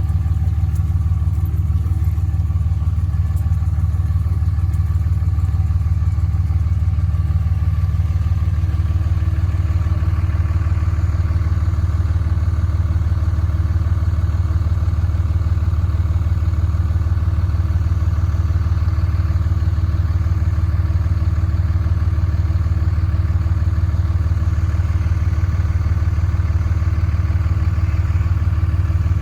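An engine running steadily at a constant speed, with a low, even throb.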